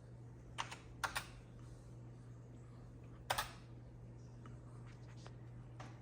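Scattered keystrokes on the Amiga 500's keyboard: a few separate key presses, mostly in quick pairs, the loudest about three seconds in, then a few fainter taps. A steady low hum runs underneath.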